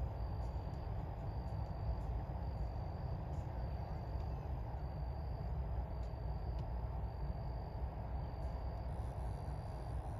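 Steady low rumble of harbour ambience at night, with a faint insect chirping over it in short, evenly repeated high-pitched pulses.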